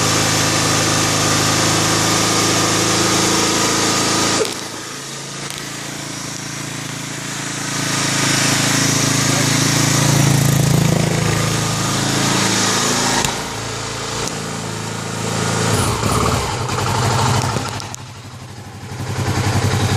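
A 2009 Kawasaki KLX250S single-cylinder four-stroke engine with a 300 cc big bore kit running cold on choke right after its first start. It runs unevenly, dropping back about four seconds in, picking up again, then sagging near the end before coming back.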